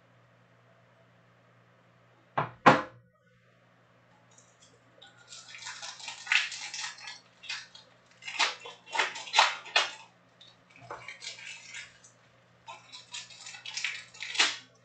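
Foil Topps Chrome trading-card pack wrappers being torn open and crinkled by hand, in irregular crackling bursts. Two sharp knocks come about two and a half seconds in, before the crinkling starts.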